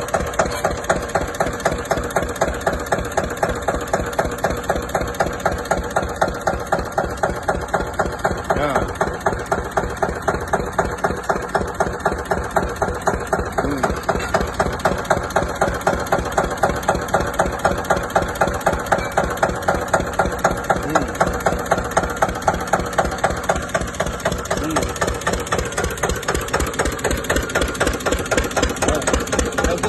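Eicher single-cylinder stationary diesel engine running steadily with an even, fast firing beat, belt-driving a brick-kiln draft fan through a countershaft.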